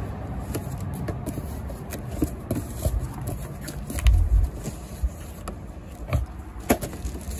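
Cardboard box being opened by hand: flaps pulled apart and folded back, with scattered scrapes and clicks and a heavier thump about four seconds in, over a steady low rumble.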